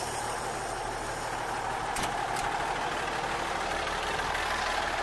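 Autocar Constructor dump truck's engine idling steadily through its newly fitted muffler, with two brief clicks about two seconds in.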